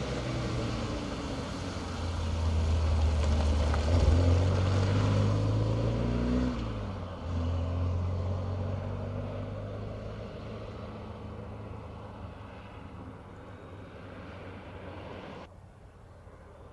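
A classic Opel saloon's engine as the car passes close and accelerates away, pitch rising and then dropping at a gear change about six and a half seconds in. It then fades steadily as the car draws off. Near the end it gives way to a fainter, more distant engine.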